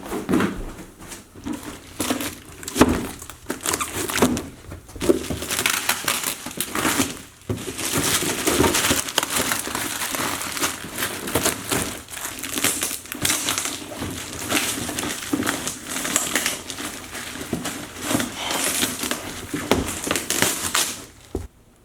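Crinkling and crumpling of material being handled, with many small knocks and crackles, stopping abruptly near the end.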